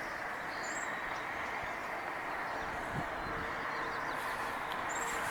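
Steady hum of distant road traffic, with three short, high bird chirps: two about half a second in and one near the end.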